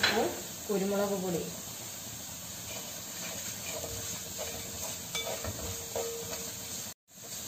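Wet onion-and-chilli masala sizzling in a wide metal pan while a wooden spatula stirs it, with light scraping against the pan.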